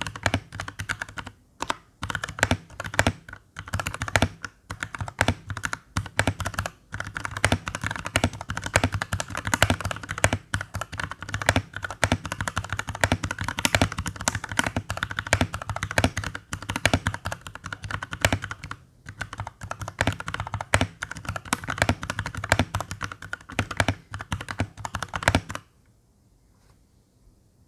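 Continuous typing on an RK61 mechanical keyboard with hand-lubed Outemu Purple tactile switches and PBT Cherry-profile keycaps, each key bottoming out with a clack. The typing stops abruptly shortly before the end.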